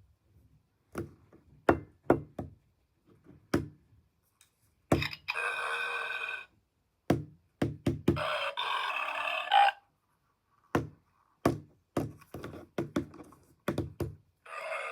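Burp Zombies battery-powered toy being shaken to activate it, with repeated plastic knocks and taps. Twice, about five and eight seconds in, its small speaker plays a sound clip lasting about a second and a half.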